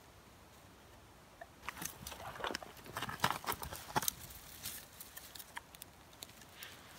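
Dry twigs crackling, snapping and rustling as a bundle of fine twigs is handled and pressed onto a small fire lay. Sharp clicks begin about a second and a half in, come thickest through the middle, then grow sparser.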